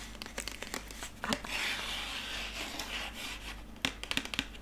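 Plastic toothbrush packaging rubbed and handled close to a microphone: a scratchy rubbing through the middle, then a few sharp clicks near the end.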